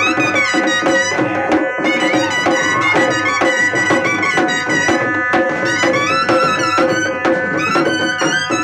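Shehnai playing a wavering, ornamented folk melody over a steady drone, with a two-headed barrel drum (dhol) beaten with a stick in a quick, steady rhythm.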